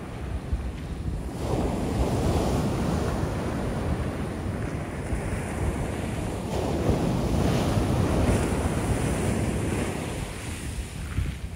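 Shore-break waves breaking close in and washing up the sand, with wind buffeting the microphone. The surf swells about a second and a half in and eases off near the end.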